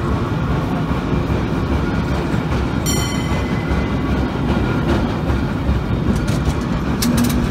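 Cable car running along street rails: a steady low rumble from the moving car, with a brief high tone about three seconds in.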